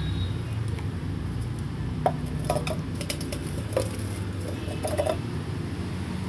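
Steel mug clinking and knocking about half a dozen times, between about two and five seconds in, as soil is tipped and shaken out of it into a paper cup.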